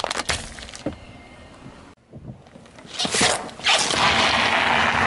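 Car tyre rolling over a plastic bottle, with sharp cracking as it gives way at the start. After a cut, the tyre crushes a watermelon: a loud, noisy crunching that runs for over a second and is the loudest sound here.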